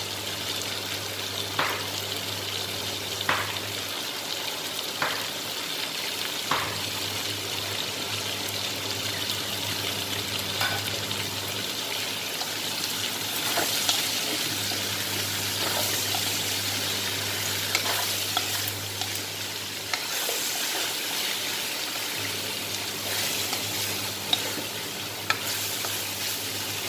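Chicken and vegetables sizzling in a hot wok as they are stir-fried, with a spatula scraping and stirring through them. Sharp clicks come about every second and a half during the first several seconds, under a steady low hum.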